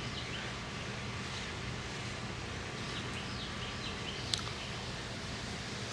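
Outdoor night ambience: a steady background hiss with a faint low hum, faint scattered high chirps, and one short click about four seconds in.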